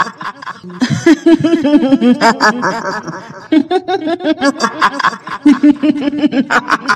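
A woman's high-pitched cackling laugh: the "hihihi" of the kuntilanak ghost, in fast runs of short bouncing syllables with brief breaks between runs.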